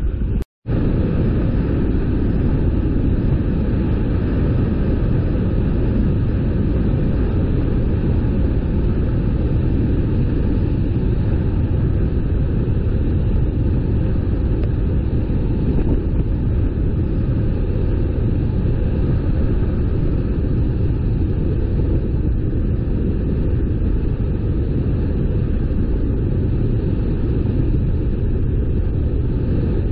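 Steady low rumble of a car driving on the road, engine and tyre noise without change of pace, after a split-second dropout about half a second in.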